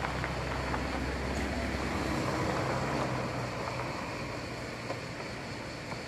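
A motor engine runs with a low steady hum over a constant rushing noise. The hum fades out about two to three seconds in.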